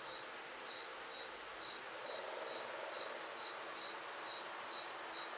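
A chirping insect: a steady, fast-pulsing high trill with a short chirp repeating about twice a second, over faint hiss.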